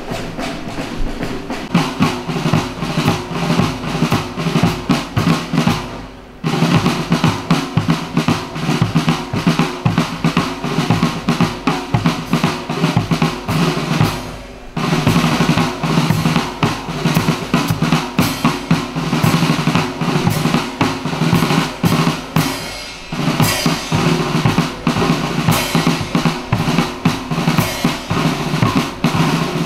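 Drumming: rapid snare drum rolls over bass drum beats, in phrases broken by brief pauses about every eight seconds.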